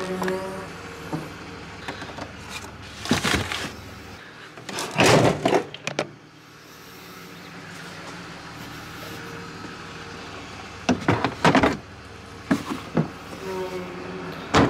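A car's boot lid being opened and the plastic headlight units loaded in. There is a handful of sharp clunks and knocks of the lid and housings, the loudest about five seconds in and again around eleven seconds.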